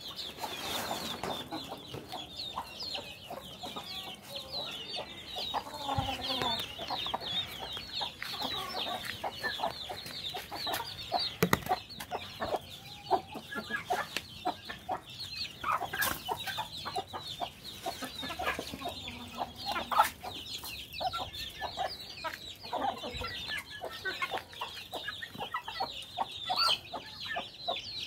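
A poultry flock of chickens and young turkeys calling: a dense chorus of high peeping runs on, with lower clucking calls over it. A few sharp knocks come in around the middle.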